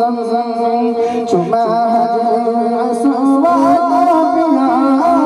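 Men singing a devotional chant into a microphone, the melody wavering and sliding over a steady held note.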